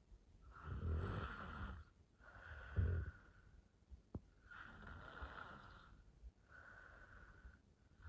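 A woman snoring in her sleep: breaths about every second and a half, some with a deep snore, the loudest a short snore about three seconds in. There is a single small click about four seconds in.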